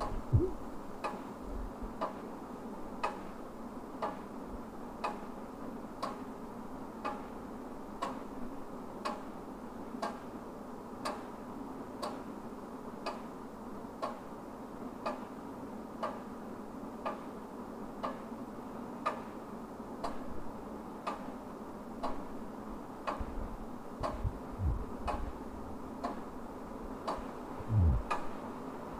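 Wall clock ticking steadily, about once a second, over a low steady hum. A few dull low thumps come in, one right at the start and a louder one near the end.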